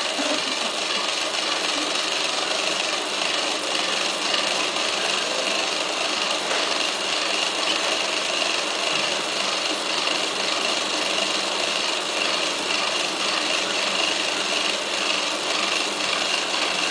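Small DC gear motors of a model four-wheel-steering robot chassis running steadily, a continuous high whir with no let-up.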